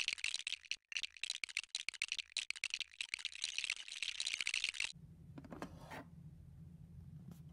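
Plastic LEGO bricks clicking and clattering in a rapid, dense run of small clicks as they are handled and pressed together, stopping abruptly about five seconds in. After that a low steady hum, a brief rustle and one faint click.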